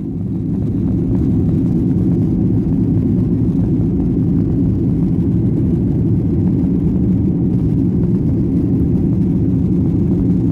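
Jet airliner cabin noise during take-off and initial climb: the engines at take-off thrust make a steady, dense low rumble, heard from inside the cabin. It swells over the first second, then holds level.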